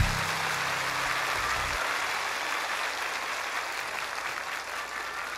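Large concert audience applauding as a song ends, a steady wash of clapping that slowly fades. The band's last low note dies away under it, cutting off about two seconds in.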